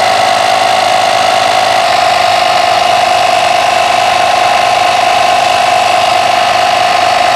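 Bergmann 2-in-1 vacuum cleaner and tyre inflator running in air-compressor mode, its small electric compressor pumping a car tyre up toward 30 PSI with a steady, high-pitched whine.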